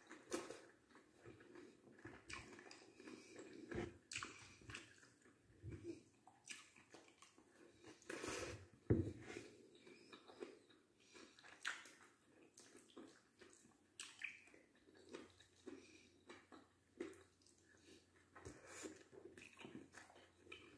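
A person chewing mouthfuls of rice and vegetables, eaten by hand: soft, irregular wet smacks and clicks, a few of them louder.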